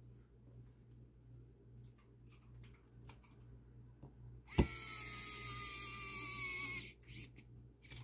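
Pen-style electric precision screwdriver driving a small screw into a headphone earcup: a click, then a high motor whine that falls slightly in pitch and cuts off after about two seconds. Faint clicks from handling small parts before it.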